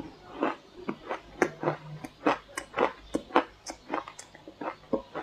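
Crunchy shaved ice coated in matcha tea powder being chewed in big mouthfuls: a quick, uneven run of sharp crunches, about three a second.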